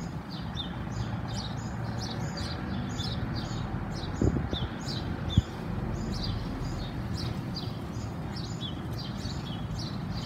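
Small birds chirping, a steady series of short falling chirps a few each second, over a low steady rumble. A brief thump comes about four seconds in, and a sharp click a second later.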